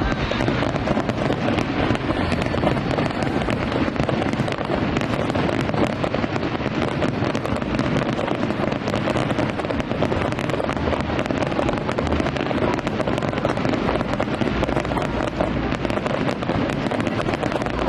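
Fireworks going off in a dense, continuous barrage of crackling and bangs with no pause, as in a show's finale.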